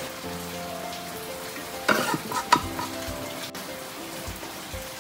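A metal spatula scraping against a wok as fried mung bean paste is scooped out, with a few sharp clanks about two seconds in. Soft background music with sustained notes underneath.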